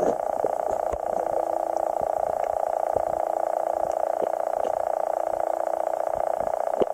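A steady, fast-pulsing buzz with a few faint clicks.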